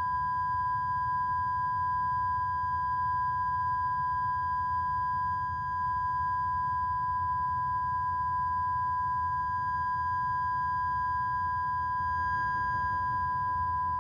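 A steady, high-pitched electronic tone held without a break: one pure note with a fainter higher note above it, over a faint low rumble.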